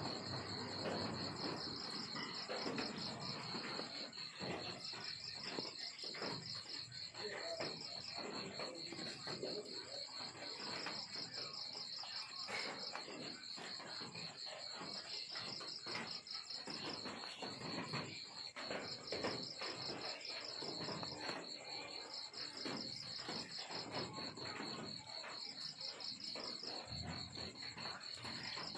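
Crickets trilling: a steady high chirping that swells into pulsed bursts every second or two, over scattered clicks and rustling.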